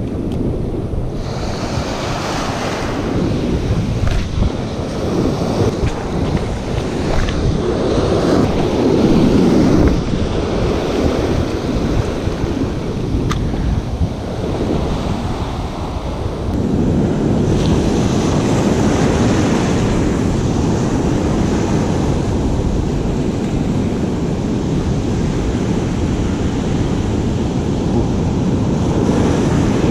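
Ocean surf breaking and washing up the beach, a continuous rush that swells louder about eight seconds in and again from about sixteen seconds on.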